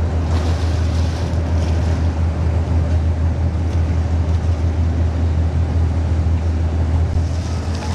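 Steady low rumble under a windy hiss over choppy harbor water.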